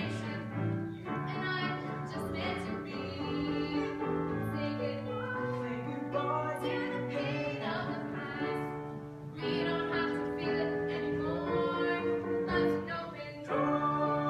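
A school choir singing on stage, holding long notes that move from pitch to pitch.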